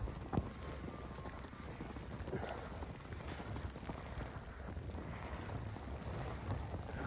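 Outdoor ambience in falling snow: a steady hiss with wind rumbling on the microphone and a few soft, scattered knocks.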